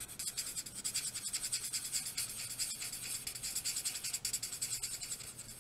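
Fine tip of a Stampin' Blends alcohol marker scribbling back and forth on cardstock: a fast, even scratching of several short strokes a second.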